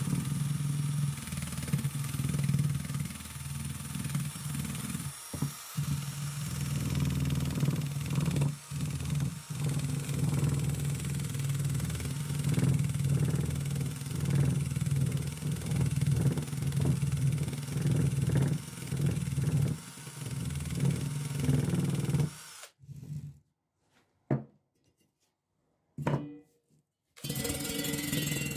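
Cordless drill spinning a small wire brush against a rusty steel pulley, scrubbing off rust with a steady motor hum and wire-on-metal hiss. The sound cuts out about 22 seconds in, leaving a few clicks, and the drill starts again near the end on the motor's rusty end cap.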